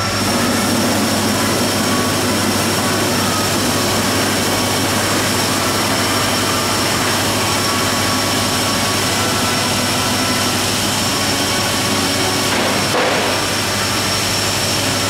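Automatic bucket-filling machine running, water pouring from its spouts into rows of plastic flower buckets: a steady rushing noise over a low hum.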